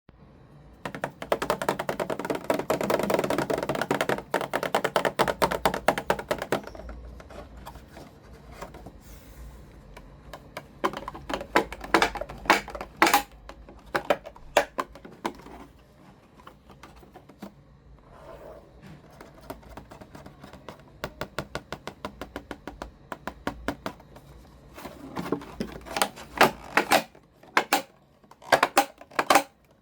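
Plastic toy pieces and packaging being handled: rapid, dense clicking and rustling for the first several seconds, then scattered sharp clicks and taps, with another quick cluster near the end.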